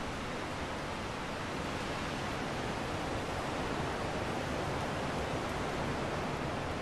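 A steady, even hiss with no tones, beats or voices.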